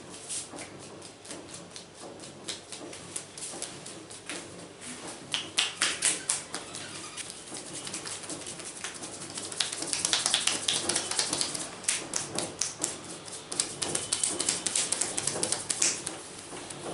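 Hands massaging an oiled scalp and hair: a fast run of wet clicks, taps and smacks, heaviest about five to six seconds in and again from about ten seconds until near the end.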